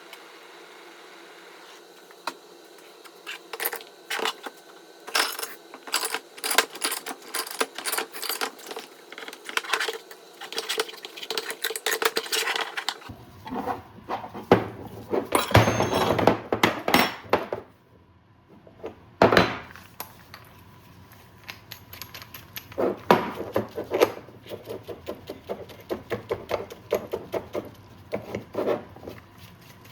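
Hand tools and metal parts clinking, knocking and scraping in an irregular clatter, from work on a dirt bike's rear shock linkage.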